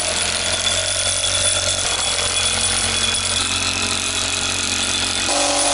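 Cordless impact driver running continuously for about six seconds, hammering a long SIP panel screw with a plate washer into the panel's OSB skin, its tone shifting slightly near the end. The screw won't drive home: this impact driver lacks the power for it.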